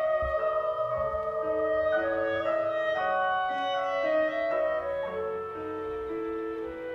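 Instrumental passage of classical chamber music: a clarinet playing a slow melodic line of held notes over piano accompaniment, without the voice.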